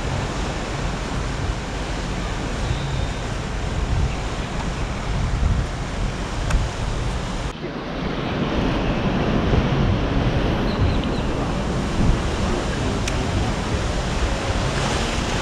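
Ocean surf washing steadily, with wind rumbling on the microphone.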